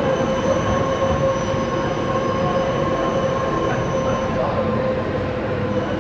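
City tram running past on its street rails with a steady whine held throughout, over a constant rumble of street traffic.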